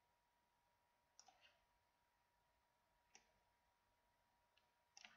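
A few faint computer mouse clicks against near silence: a quick double click about a second in, a single click near three seconds, and a short flurry near the end. A faint steady whine runs underneath.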